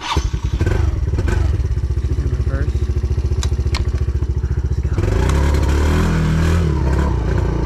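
Yamaha Raptor 90 quad's small four-stroke single-cylinder engine starting and catching at once, then idling with a fast, even putter. About five seconds in it revs up, the pitch rising and falling as the throttle is opened and eased.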